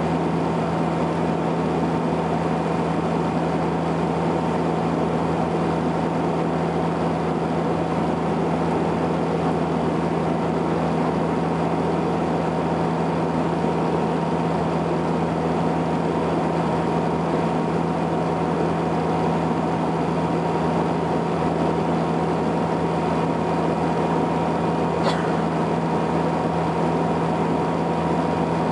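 Saab 340B's turboprop engines and propellers droning inside the cabin on descent: a steady deep hum with a couple of steady higher tones over an even rushing noise, unchanging throughout.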